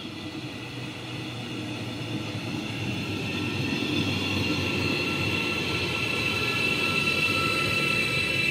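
Arriva Stadler GTW train running in along the platform, its rumble growing louder as it comes close. From about three seconds in, a high steady squeal builds up over the running noise.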